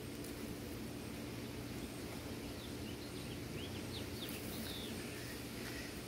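Steady low background hum outdoors, with a short run of quick high bird chirps a little past the middle.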